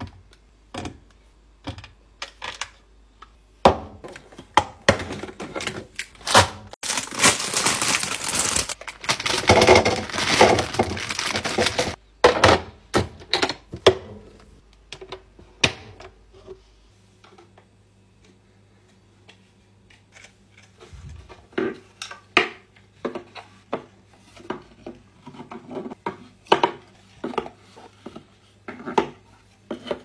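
Fruit and vegetables being set into clear plastic fridge organizer bins: a run of light knocks and taps of produce against plastic, with a few seconds of dense rustling around the middle.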